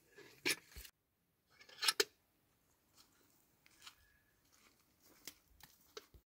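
Tomato vines being handled as ripe tomatoes are picked: leaves rustling and stems snapping in a few short crisp bursts, loudest about half a second and two seconds in, with fainter ticks later.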